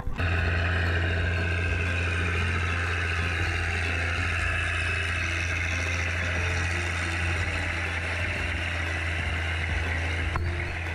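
Tractor engine running steadily at a constant pitch while it pulls cage wheels through a flooded paddy field.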